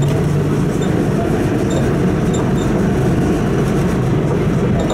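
Inside a moving city bus: the steady low rumble and drone of the bus's engine and running gear as it drives along a street, with a few faint clicks and rattles from the cabin.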